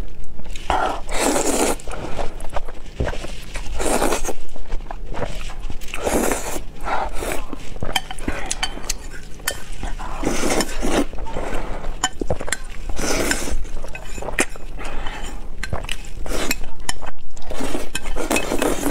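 Close-miked slurping of spicy instant noodles, in repeated noisy draws every second or two, with chopsticks clicking and scraping on the pan between them. The longest slurp comes near the end.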